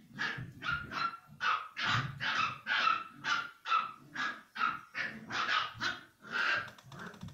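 A puppy yapping over and over in short, high barks, about two a second, which stop abruptly near the end.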